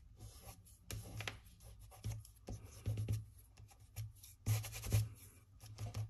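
Fingertips pressing and smoothing a freshly glued paper cut-out onto a paper sheet: soft, irregular rubbing and brushing of skin on paper, with a few louder strokes about four and a half seconds in.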